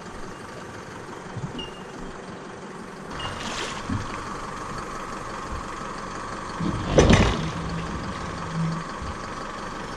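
Small aluminium boat being hauled by hand onto a submerged trailer, with a loud knock about seven seconds in as the hull meets the trailer. A steady engine hum runs underneath.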